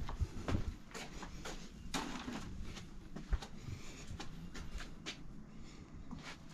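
Footsteps on a concrete porch and walkway: a string of light, irregular steps and scuffs.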